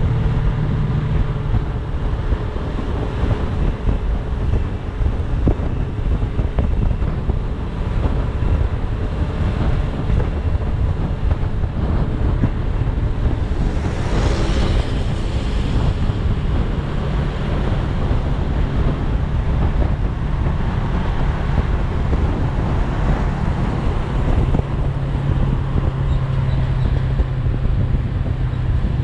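Scrambler-style motorcycle engine running steadily at cruising speed, heavily mixed with wind buffeting the microphone. A brief rush of noise swells up about halfway through.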